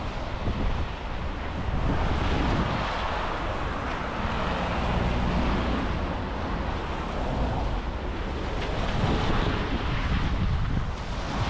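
Steady noise of city road traffic, mixed with wind buffeting the microphone.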